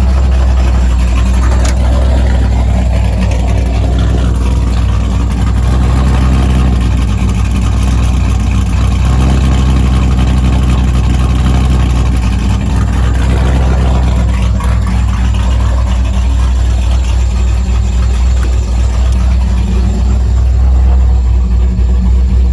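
LS-swapped Chevy C10's V8 idling steadily, warmed up and running on a self-tuning Holley Terminator X fuel injection system.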